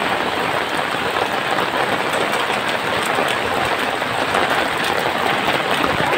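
Heavy rain pouring onto a wet street: a steady, loud hiss with faint scattered ticks of drops.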